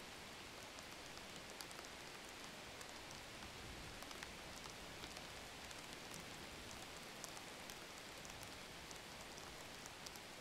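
Faint steady hiss sprinkled with light, scattered ticks, like rain falling on a surface.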